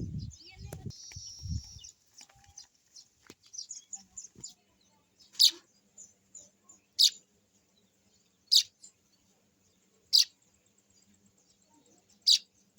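A small bird chirping: a scatter of soft, high chirps, then five loud, sharp single chirps about a second and a half apart. A few low thumps in the first two seconds.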